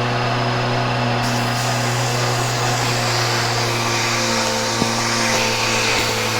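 Bissell PowerForce Helix vacuum cleaner running steadily, its motor giving an even hum over a rush of airflow, with one small tick about five seconds in.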